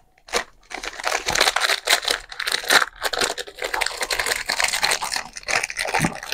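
Plastic wrapper of a chocolate bar being torn open and crinkled: a dense, irregular crackling rustle that starts about a second in and keeps going.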